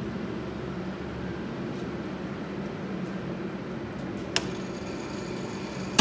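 Steady low mechanical hum of a machine shop's background, with a single sharp click a little over four seconds in.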